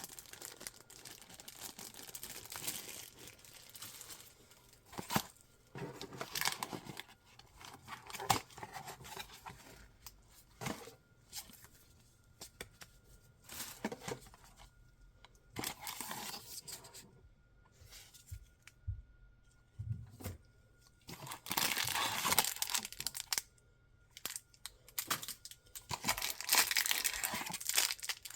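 Packaging being torn open and crinkled by hand, in irregular rustling stretches mixed with sharp clicks and knocks from handling, with two longer, louder bouts of tearing near the end.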